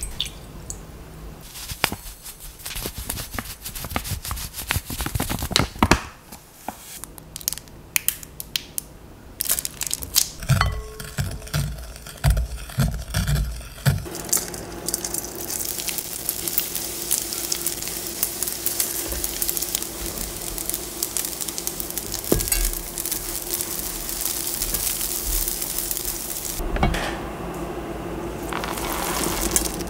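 A wooden spoon scraping and clicking against a glass bowl as a soy and cooking-wine sauce is mixed. About halfway through, small dried anchovies tip into an oiled pan and set off a steady sizzle as they stir-fry, with a silicone spatula turning them near the end.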